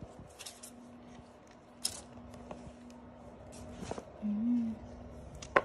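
Hands handling a cardboard iPhone 13 box: scattered light scraping, rustling and clicking of the box, with one sharp click near the end.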